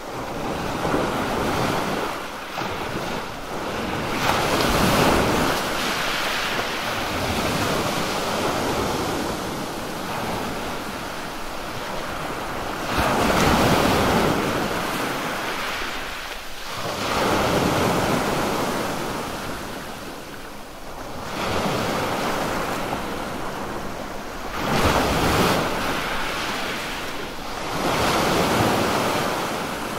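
Sea waves breaking on a sandy shore: a steady rush of surf that swells and eases every few seconds, with several louder breakers.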